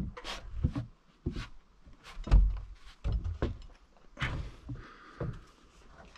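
Irregular wooden knocks and thumps, about a dozen over several seconds, the loudest a deep thump a little over two seconds in: a heavy timber rafter being handled and knocked into place on a wooden frame.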